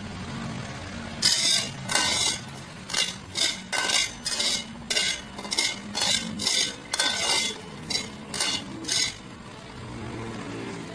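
Metal spatula scraping and clanking against a stainless steel pot while stirring ginger slices: a dozen or so short strokes at about two a second, then it stops.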